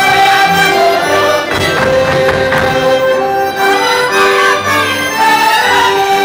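Live Polish folk dance music: a band led by fiddles playing a dance tune.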